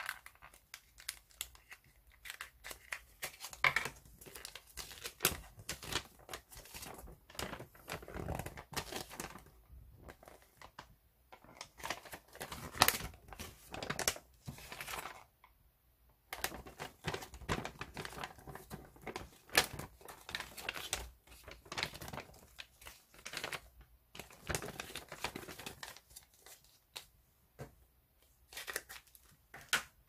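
Folded paper instruction leaflet rustling and crinkling as it is unfolded and handled, in irregular spells with sharp crackles and brief pauses.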